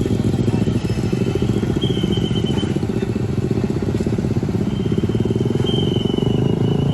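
A vehicle engine running close by: a loud, steady low rumble. A faint thin high whine rises over it twice, about two seconds in and again from about five seconds in.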